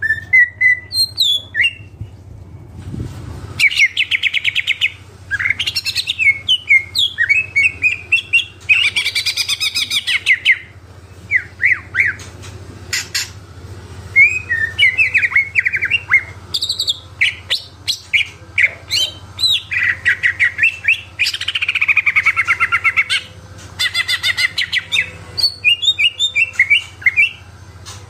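Cucak ijo (green leafbird) singing vigorously in a long, varied run of rapid chirps, trills and whistled phrases, broken by short pauses. A faint steady low hum lies underneath.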